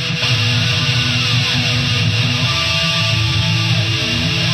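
Instrumental passage of a Czech thrash/groove metal recording: distorted electric guitars playing, with held notes and a few sliding notes, and no singing.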